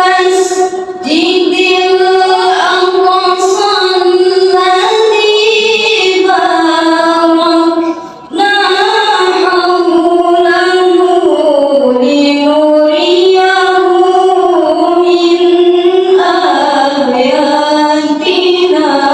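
A young female reciter (qari'ah) chanting the Quran in the melodic tilawah style into a microphone: long held, ornamented phrases with a breath about eight seconds in, the last phrase ending near the end.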